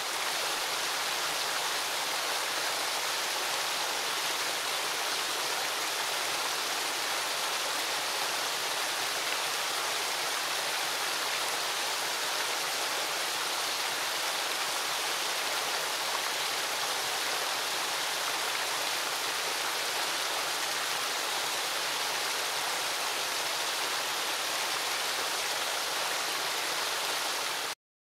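Water from an artificial rock waterfall falling steadily down its tiers into the pool: an even, constant rush of water that cuts off suddenly near the end.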